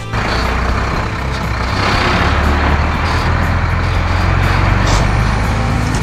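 Heavy-machine engine sound effect for an animated wheel loader: a steady low rumble with a rushing hiss above it, swelling a little toward the middle.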